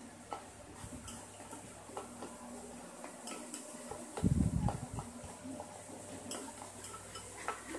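A utensil clicking and scraping against a bowl while stirring slime ingredients. About four seconds in there is a dull low thump, the loudest sound here.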